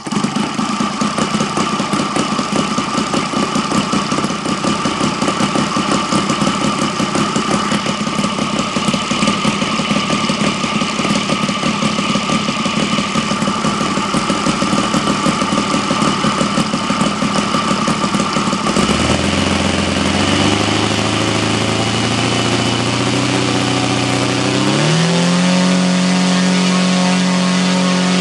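Saito FA-120R3 three-cylinder four-stroke glow radial engine turning a propeller, idling with a distinct pulsing beat. About 19 seconds in it is opened up, and near 25 seconds its pitch rises again to a steady higher speed.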